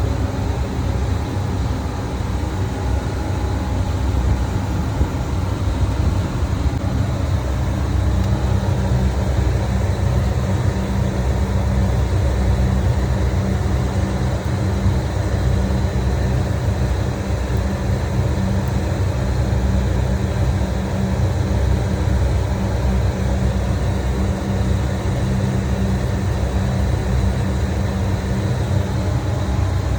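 HVAC chiller plant running, a loud steady low hum with several fixed tones over a machinery rumble; one low tone becomes stronger about eight seconds in.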